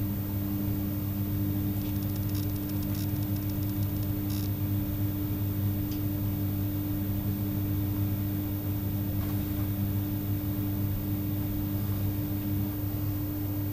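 A steady low hum runs throughout, with a few faint light clicks in the first half. One of the hum's tones drops out near the end.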